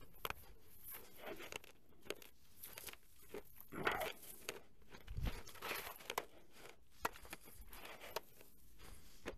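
Footsteps crunching and crackling through dry grass and brush, with dry stalks rustling and scraping, in an irregular, uneven rhythm.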